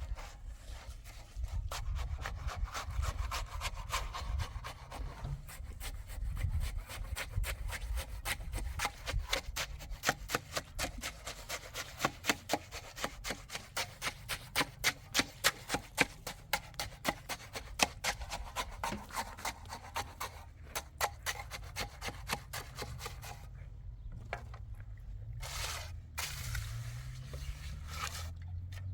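Repeated rubbing and scraping strokes, even and rhythmic, about two a second at their loudest and most regular stretch in the middle.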